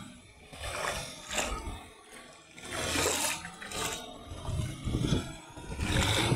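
Sonalika tractor running as it drives through a flooded paddy field, its wheels churning and splashing the water. The sound rises and falls in loudness in uneven surges.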